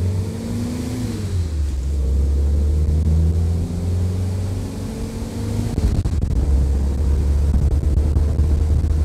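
Willys Jeep's L134 four-cylinder engine accelerating hard, climbing in pitch through the gears, with drops at the shifts about a second and about six seconds in, and wind noise over the open vehicle. It is pulling eagerly on its freshly rebuilt Carter carburetor.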